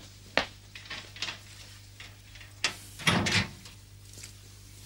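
A metal school locker being opened: a few light clicks of the latch and handle, then a louder clunk and rattle of the steel door about three seconds in, over a faint steady hum.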